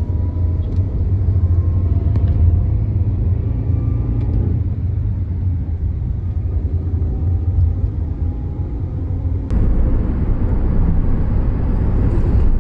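Steady low rumble of a car's engine and tyres heard from inside the moving cabin. About three quarters of the way in, it changes abruptly to a brighter hiss of road noise.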